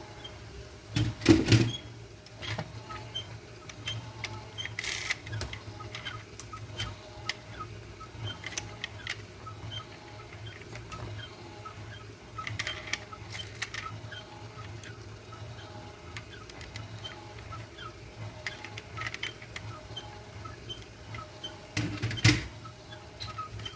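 Small clicks, taps and rattles of die-cast toy cars being handled, their parts worked and set down, with a louder knock about a second in and another near the end, over a steady low hum.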